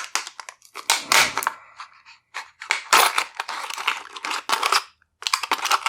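Heavy shears cutting through stiff plastic blister packaging: a run of sharp snaps and cracking crinkles as the plastic is cut and pulled apart, with two short pauses.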